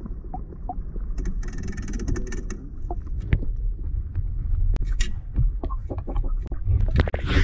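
Water heard through a submerged camera, muffled and rumbling low, with scattered knocks and clicks. A hiss of splashing or bubbles comes about a second and a half in, and a louder splash comes near the end.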